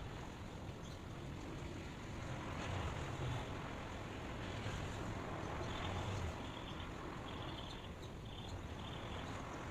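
Steady outdoor ambient rush with a low rumble, swelling about three seconds in and again about six seconds in, with a few faint short high tones over it.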